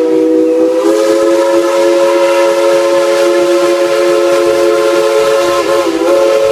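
Steam locomotive whistle blowing one long, steady blast that sounds several notes at once like a chime whistle, its pitch dipping briefly about six seconds in.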